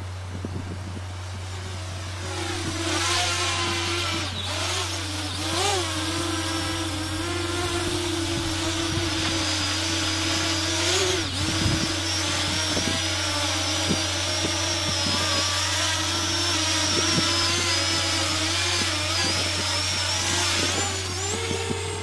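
Parrot Anafi quadcopter's propellers and motors whining in flight. The pitch holds mostly steady but swoops up and down as the drone manoeuvres; the whine grows louder about two seconds in and steps up in pitch near the end.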